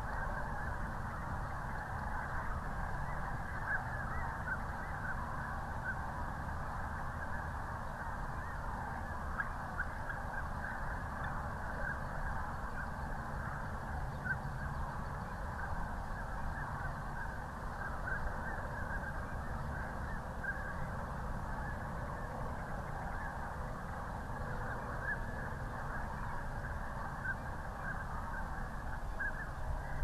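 A huge flock of migrating snow geese and sandhill cranes calling in flight: a dense, unbroken chorus of many overlapping calls, over a low steady rumble.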